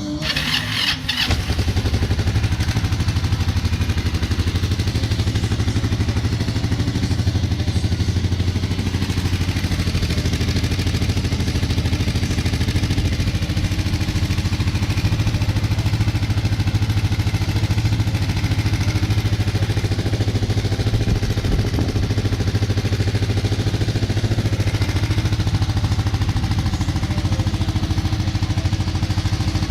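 Kawasaki Vulcan 500 motorcycle's parallel-twin engine idling at a steady, even speed, settling in about a second in.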